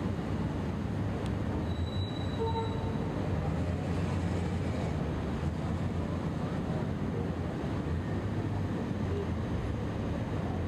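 Steady low rumble of city street traffic and running vehicle engines, with a brief faint squeal about two and a half seconds in.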